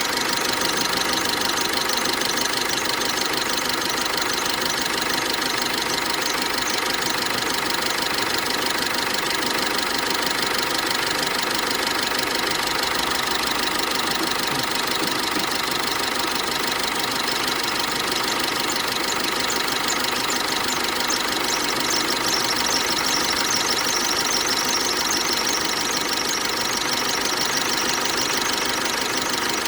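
GAZelle's Cummins diesel engine idling with a diesel clatter, over it a steady high-pitched whistle from the drive belt. The whistle grows stronger about two-thirds of the way through; the wax rubbed on the belt has not cured the squeak.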